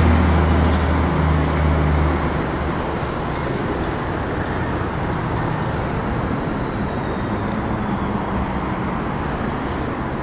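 Steady rumble of road traffic, with a low hum in the first two seconds that fades out.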